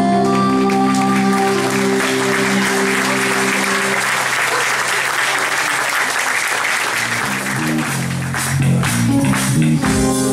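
Audience applauding as the band's final chord rings out. About seven to eight seconds in, live band music starts again, with stepping bass notes and a percussive beat.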